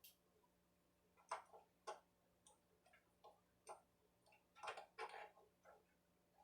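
Faint, irregular clicks and light knocks from the parts of a Harbor Freight router table being handled and adjusted, with a small cluster of them about five seconds in.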